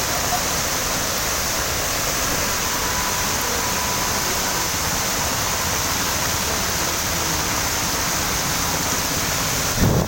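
Heavy rain falling steadily, a dense even hiss. A brief low thump near the end.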